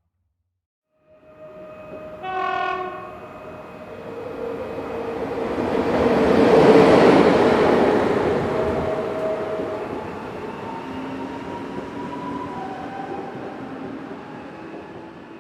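A train passing by: a short horn blast about two seconds in as it approaches, then the rumble of the train swells to its loudest about halfway through and slowly fades as it moves away.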